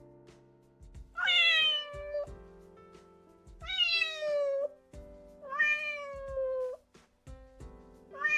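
A cat meowing three times, each meow about a second long and falling in pitch, with a fourth starting at the very end, over background music.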